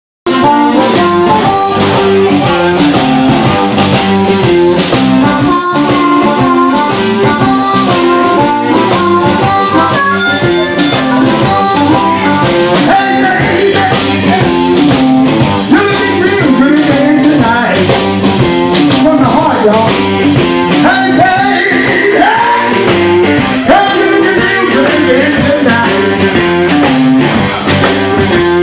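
Live electric blues band playing: electric guitars, bass guitar and drum kit, loud and steady throughout.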